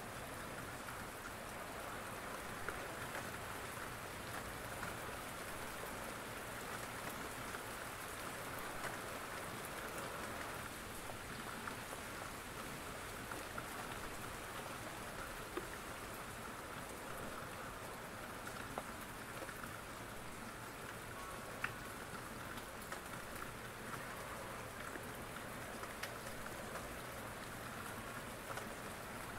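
Steady rain falling, an even hiss of drops, with a few sharper ticks now and then.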